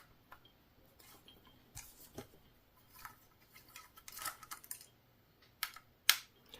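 Scattered light metal clicks and taps from small screws and a hex key being worked and handled, with a few sharper clicks near the middle and end.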